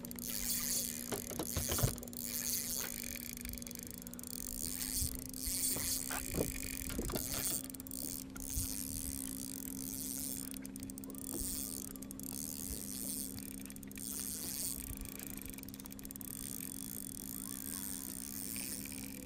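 A boat's motor humming steadily in a low two-note drone, under surging hiss of wind and water and a few faint clicks.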